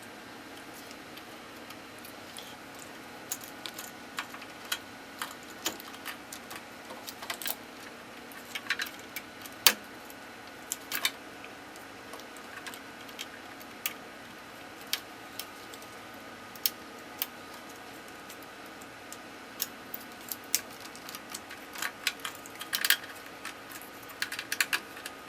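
Irregular light clicks and taps of small hard parts or tools being handled, with a cluster of quick clicks about nine to eleven seconds in and another near the end, over a faint steady electrical hum.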